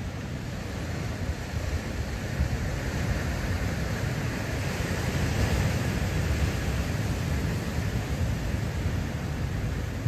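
Ocean surf breaking on a rocky shore, a hiss of white water that swells about halfway through, under a steady low rumble of wind on the microphone.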